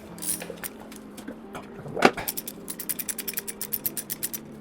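Ratchet wrench working the valve cover bolts off a Lotus 907 engine: a few single clicks, a sharp metal knock about two seconds in, then a fast run of ratchet clicks, about ten a second, for around two seconds.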